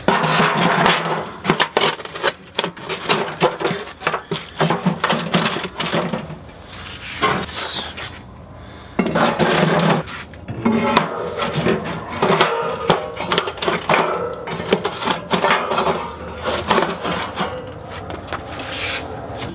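Clattering and knocking of an aluminium foil drip pan and a metal cooking grate being handled and set into a Char-Griller AKORN ceramic kamado grill, with a brief lull partway through.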